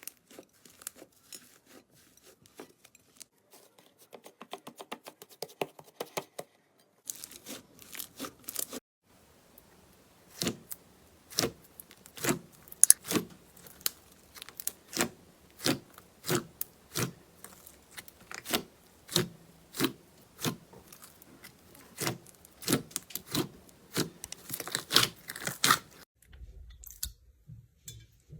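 Slime being pressed and worked by hand, crackling finely at first and then giving a steady run of sharp pops and clicks, about two a second, that stop shortly before the end.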